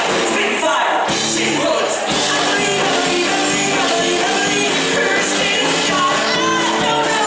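Live band playing with a woman singing lead over acoustic guitar, electric guitar, bass guitar and drums, with a steady drum beat.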